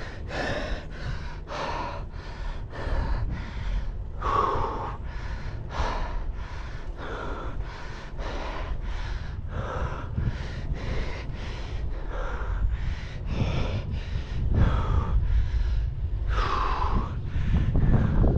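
A cyclist panting hard while pedaling, quick rhythmic breaths about two a second, over a steady low wind rumble on the microphone.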